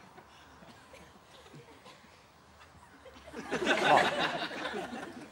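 Quiet room tone, then about three seconds in a burst of audience laughter lasting a second or two, with a man saying "vann" over it.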